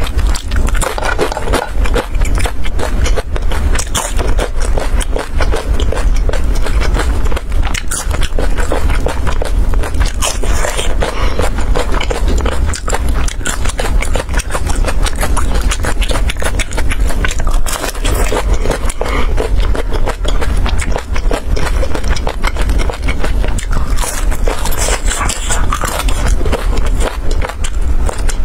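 Close-miked crunching and chewing of crisp fried lotus root slices, a dense run of crackly bites and mouth sounds, with a steady low hum underneath.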